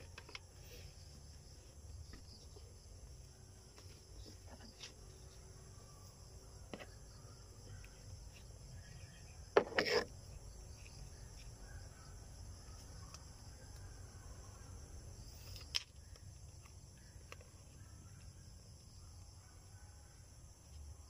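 Steady chirring of crickets or similar insects, with faint handling of a plastic bottle and its sticker label. A brief louder knock comes about halfway through, and a smaller one a few seconds later.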